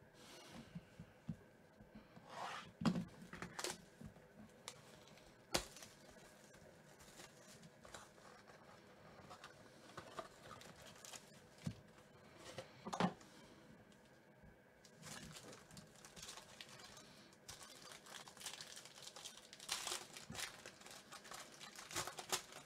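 A cardboard trading-card box being handled and opened, with scattered taps and knocks, then a foil card-pack wrapper crinkling and tearing open in the second half.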